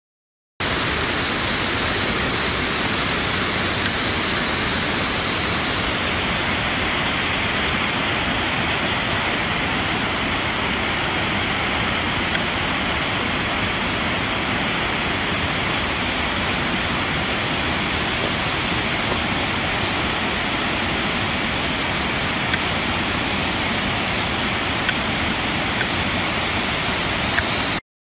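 Waterfall: a steady rush of falling water that starts abruptly about half a second in and cuts off just before the end.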